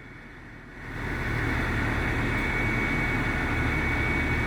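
A steady low engine-like rumble with a thin, steady high tone over it, coming in about a second in and holding level, as a radio channel opens on background noise.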